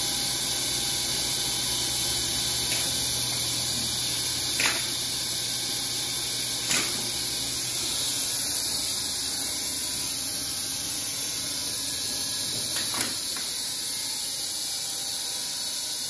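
Otis elevator machine room equipment: a steady hiss over a low hum, with three sharp clicks. The hum cuts off with the last click about 13 seconds in.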